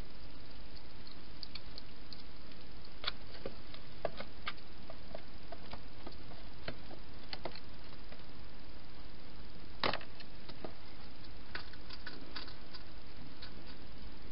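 Wild hedgehog eating from a bowl inside a plastic feeding box: scattered sharp clicks and crunches, with one louder knock about ten seconds in, over a steady hiss.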